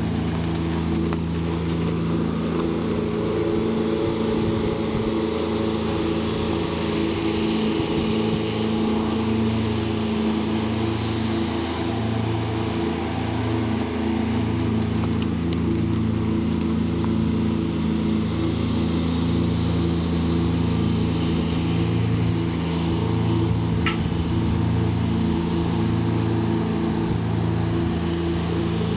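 An engine running steadily, a low, even hum of several steady tones with a slow regular throb, about once every second or so.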